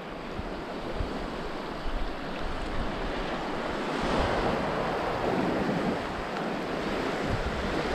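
Shallow seawater washing and lapping over a reef flat, with wind buffeting the microphone; a steady rush of water noise throughout.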